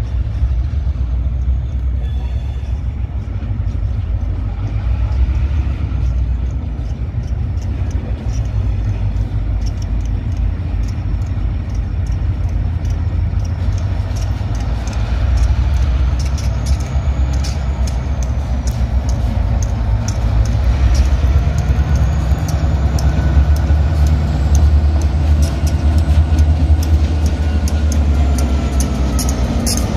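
Diesel-electric freight locomotives approaching and passing at slow speed: a loud, low engine drone that grows louder as the units draw near. From about halfway the drone is joined by rapid clicking of the wheels on the rails.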